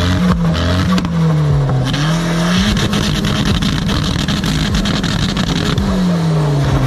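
Car engine revving hard: its pitch climbs about two seconds in, holds high with a rapid stutter for about three seconds, then falls away near the end.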